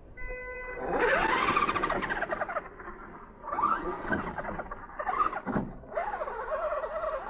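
Radio-controlled truck pulling away over dirt and dry leaves. A short steady tone, then from about a second in the motor rises and falls in pitch over the crunch of tyres, in several surges of throttle.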